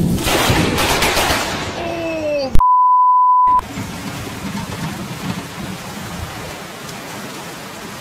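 Loud rushing noise for the first couple of seconds, cut off by a loud, steady electronic beep lasting about a second. After it comes the steady rush of a muddy floodwater torrent pouring through a street.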